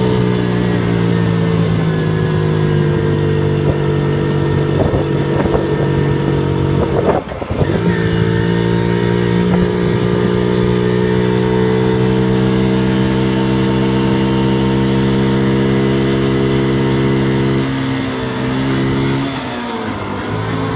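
Honda Monkey's 49 cc four-stroke single-cylinder engine running while being ridden, its note slowly falling. About seven seconds in the note briefly breaks off and dips, then picks up again and holds steady; near the end the pitch and level drop as the throttle eases off.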